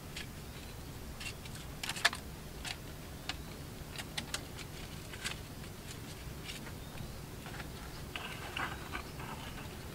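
Scattered small clicks and rustles of hands unwinding nylon fishing line from a wound coil. The sharpest click comes about two seconds in, and there is a denser rustling patch near the end.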